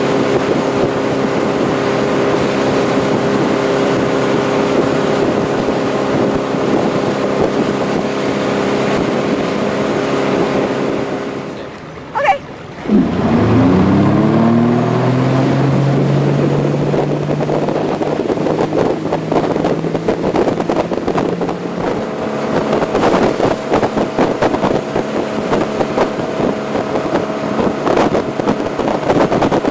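Tow boat's engine running steadily at speed, with wind and water rush. About twelve seconds in, the sound briefly drops away. The engine then revs up, its pitch rising and levelling off as the boat accelerates, and it runs on steadily.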